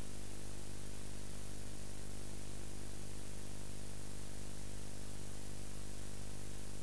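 Steady hiss with a low electrical hum, unchanging throughout: the noise floor of a blank recording signal.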